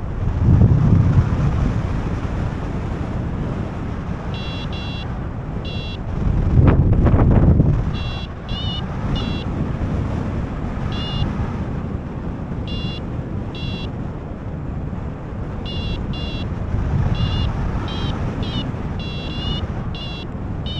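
Rushing airflow on the microphone of a paraglider in flight, with two louder gusts. Above it a phone vario app beeps in short high tones. They start about four seconds in and come more often near the end, some rising in pitch: the climb tone that signals the glider is in lift.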